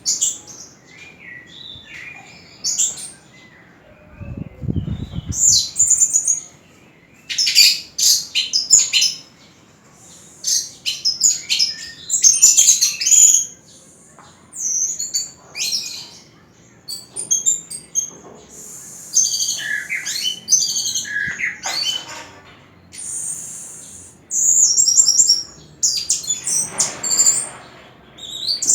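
Orange-headed thrush singing: rapid phrases of high, varied chirps and whistles, delivered in bursts with short pauses between them.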